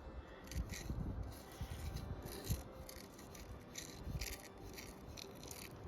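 Short, repeated bursts of scraping and rattling from gravelly dirt being dug and sifted through by hand while a metal-detector target is searched for, with soft low knocks.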